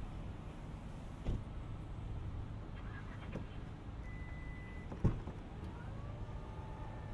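Outdoor ambience with a steady low rumble and two short knocks, about a second and about five seconds in, the second one louder. Near the end a faint engine note rises in pitch and then holds, from a vehicle nearby.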